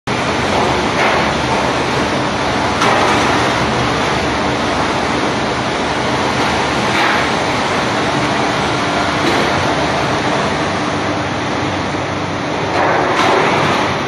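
Tunnel-type high-pressure crate washing machine running: a loud, steady rush of water spraying inside the wash tunnel over a faint steady machine hum, with a few brief louder swishes.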